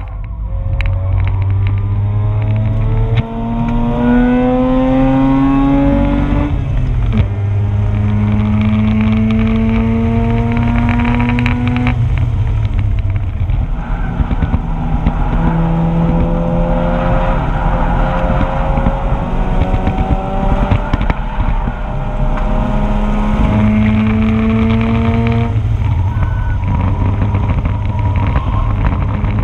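Mazda RX-8's two-rotor rotary engine heard from the cabin, accelerating hard on track: the pitch climbs steadily in three long pulls, each ending in a sudden drop in pitch at a shift or lift, with a GoPro mount rattling throughout.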